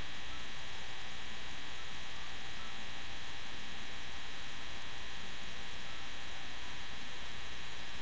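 Steady electrical buzz and hiss made of many even tones, unchanging throughout.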